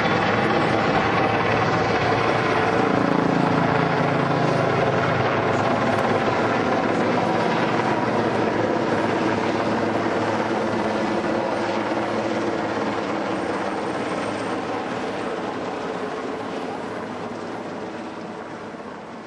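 Large five-bladed helicopter flying past with its rotors and engines running steadily. The sound fades gradually over the second half as it flies away.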